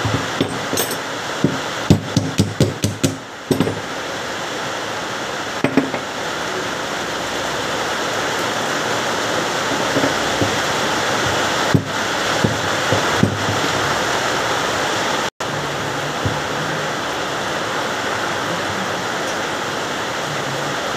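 Metal clinks and knocks from a car starter motor being dismantled by hand: its solenoid, end cover and brush holder are handled and set down. There is a quick run of clicks in the first few seconds and a few single knocks later, over a steady rushing hiss.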